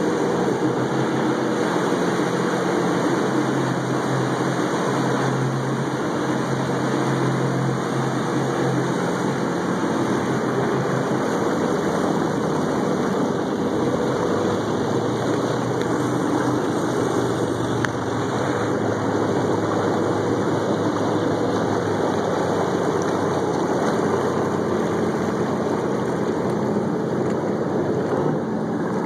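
Sea-Doo RXP-X personal watercraft's four-stroke engine running steadily at low speed, a continuous hum whose pitch shifts slightly about eleven seconds in.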